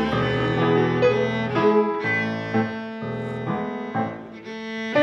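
Background music: slow held notes on bowed strings with piano.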